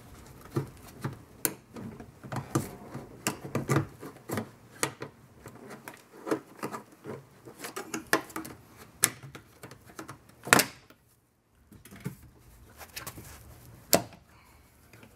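Honda S2000 door panel being pried off with a plastic trim tool: irregular clicks, taps and rubbing of plastic on the door, with two sharp pops of clips letting go, one about two-thirds of the way through and one near the end.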